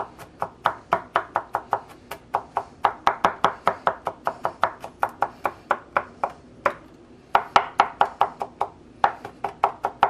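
Chef's knife mincing garlic on a plastic cutting board: quick, even knocks of the blade on the board, about four a second, with two short pauses partway through.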